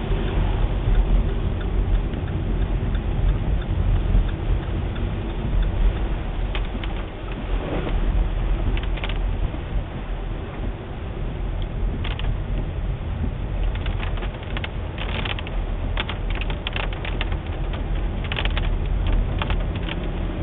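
Road and engine noise inside a moving car: a steady low rumble of engine and tyres. Over the second half it is joined by many short, irregular clicks and rattles.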